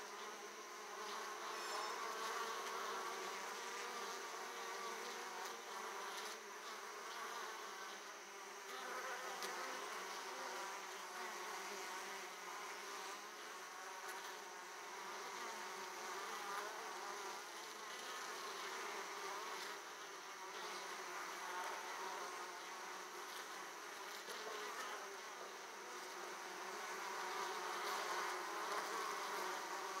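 Steady buzzing of many Italian honey bees at the hive entrance as they crawl and fly in and out, swelling a little louder near the end.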